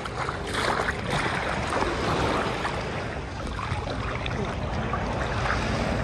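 Calm shallow sea water sloshing around a person wading, with wind rumbling on the microphone.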